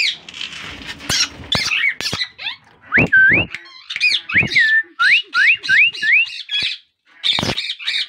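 Plum-headed parakeets calling: short harsh squawks, then a run of clear whistled notes that each slide upward in pitch, about five of them in quick succession near the middle, followed by more squawks.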